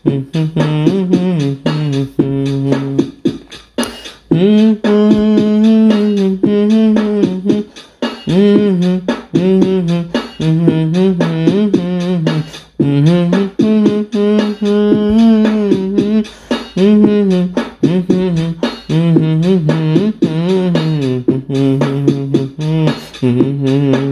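Background music with a voice singing the melody in held, stepping notes.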